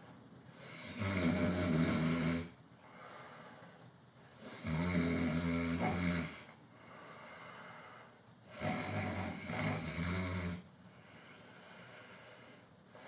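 A person snoring: three long, loud snores about four seconds apart, with quiet breathing between them.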